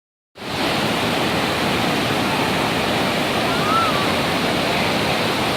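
Waterfall rushing in a steady, dense roar of water, starting about half a second in. A brief high whistled note rises and falls about two-thirds of the way through.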